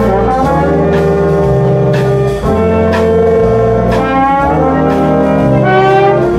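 Jazz big band playing: trumpets, trombones and saxophones holding loud chords over low bass notes that change about once a second, with drum hits about once a second.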